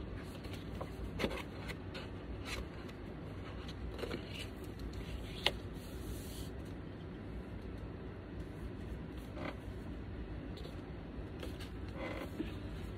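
A vinyl LP being slid back into its sleeve and the cardboard album jacket handled: faint scattered rustles and scrapes with a few small clicks, the sharpest about five seconds in, over a low steady hum.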